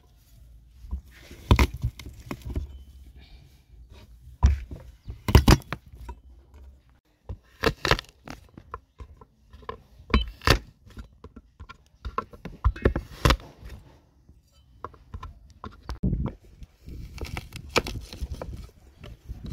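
Garlic cloves crushed with a cleaver on a wooden cutting board: a dozen or so irregular sharp knocks and cracks, some in quick pairs, with scraping and rustling between them.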